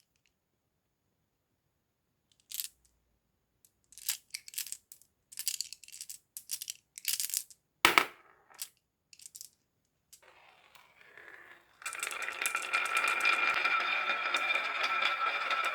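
Marbles clicking and clattering down a wooden marble run in a string of separate taps, with one sharper knock near the middle. Near the end a steady sound with held tones comes in, like music.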